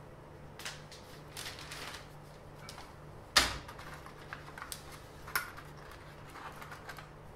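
Scattered handling noises of a flexible ruler and paper on a workbench: light clicks and rustles, with one sharp knock about three and a half seconds in.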